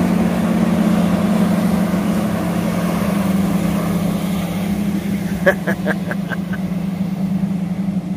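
A boat motor running steadily, a constant low hum over a noisy wash. About five and a half seconds in there is a brief run of quick chirping pulses.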